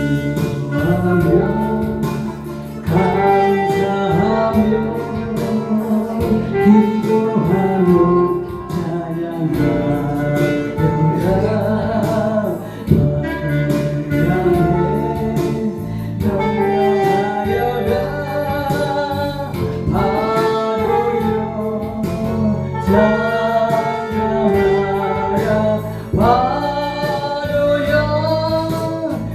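Gospel song: a sung melody over instrumental accompaniment.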